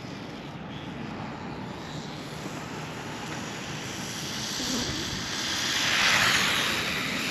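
A WLtoys 1:28 scale micro RC car running fast: a high electric-motor whine with tyre hiss on concrete, growing louder to a peak about six seconds in as it comes close, then easing slightly.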